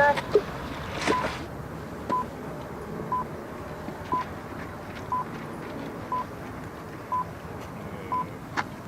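Electronic race-start timer beeping once a second, short even beeps counting down the start sequence, with a brief sharp sound right at the beginning.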